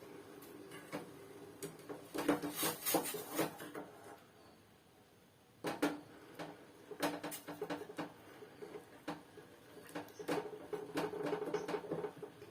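Metal spoon stirring in a cooking pan, with scattered clinks and scrapes against the metal and a short pause about four seconds in.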